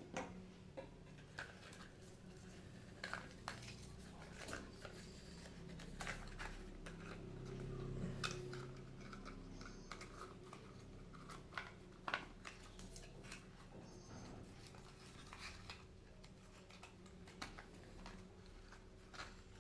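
Faint, scattered clicks and taps of small objects and packaging being handled and set down on a glass tabletop, over a low steady hum.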